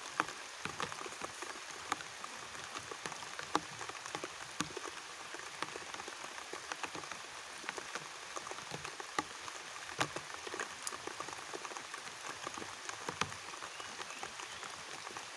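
Steady rain, with many separate drops landing close by as sharp ticks.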